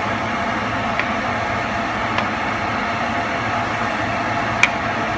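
Wooden spoon stirring rice and black beans through their cooking liquid in a pot, with three light clicks of the spoon against the pot, the sharpest near the end, over a steady rushing noise.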